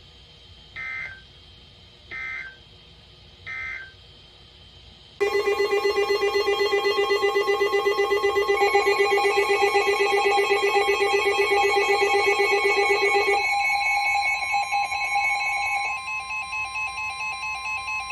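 Emergency Alert System data tones: three short warbling bursts of the end-of-message code, about a second apart. About five seconds in, a loud, pulsing alert tone of several pitches starts; it shifts in pitch twice and then settles with one steady tone.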